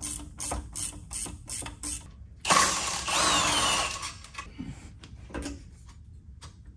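Socket ratchet clicking evenly at about four clicks a second while undoing a rear shock absorber bolt. About two and a half seconds in, a louder, rougher noise lasts about a second and a half, then a few more scattered clicks follow.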